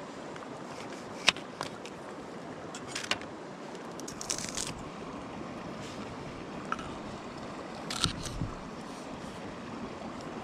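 Steady rush of the nearby river's flowing water, with a few sharp clicks and a short scrape of something being handled, the loudest click about a second in.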